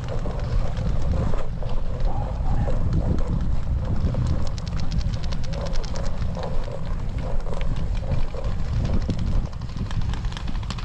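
Wind rumbling on a head-mounted camera's microphone across an open field. From about four seconds in, a rapid, even string of sharp cracks from paintball markers firing in the middle of the game.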